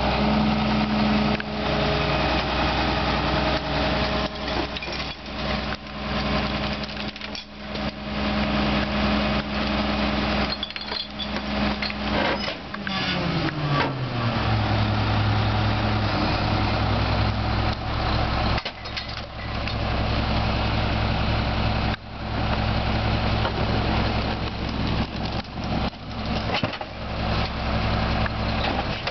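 McNeilus rear-loader garbage truck's diesel engine revving up to drive the hydraulic packer, holding a steady high speed, then dropping back to a lower speed about twelve seconds in. Knocks and clanks from the packing mechanism come through at intervals as the blade sweeps refuse out of the hopper.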